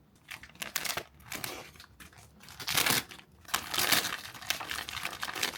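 Crinkling and rustling of plastic or paper packaging being handled and torn open, in irregular bursts, loudest about three and four seconds in.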